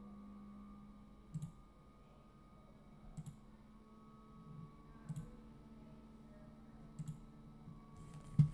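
Faint paired clicks repeating evenly about every two seconds, over a low steady hum.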